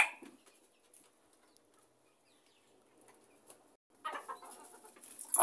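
Bantam chickens: the last moment of a rooster's crow, then a lull, then soft hen clucking from about four seconds in, with a louder call just at the end.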